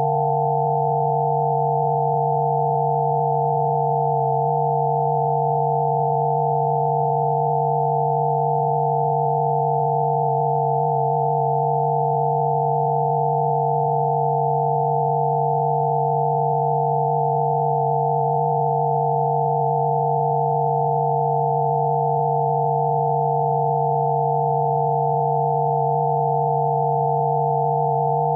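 Several steady electronic sine tones held together without change, one low tone and a cluster of higher ones: a synthesized Rife-frequency tone track.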